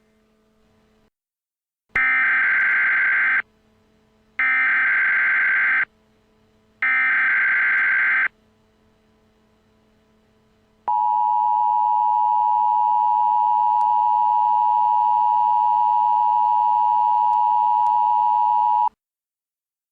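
Emergency Alert System SAME header: three bursts of warbling digital data tones, each about a second and a half long. After a short pause comes the EAS two-tone attention signal, a steady harsh dual tone held for about eight seconds. Together they mark the start of a new emergency alert.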